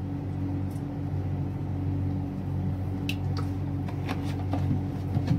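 A steady low mechanical hum with a held tone, with a few faint light ticks after about three seconds.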